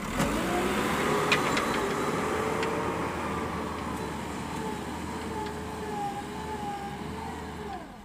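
JCB backhoe loader's diesel engine running as the machine works and drives over loose sand; its pitch rises in the first second and then wavers up and down.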